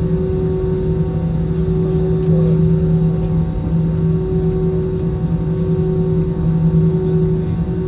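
Inside the cabin of an Airbus A321-211, its CFM56 engines running at idle with a steady low hum and rumble, as while taxiing after landing.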